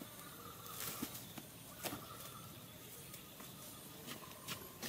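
Hand tools digging into damp clay soil: a handful of separate chopping strikes and scrapes, the two clearest about one and two seconds in.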